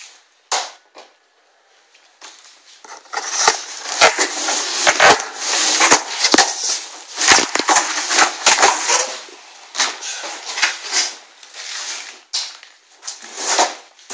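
Packaging of a new air compressor being torn and pulled open, with rustling, scraping and sharp snaps and clicks. It starts about two seconds in and goes on in uneven spurts.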